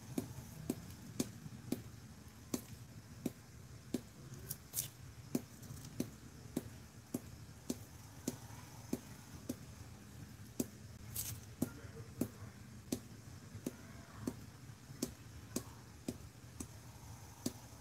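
Light, sharp taps on a plastic glitter shaker jar with a sifter lid, about three every two seconds at a steady pace, knocking fine glitter out onto a wet epoxy-coated tumbler.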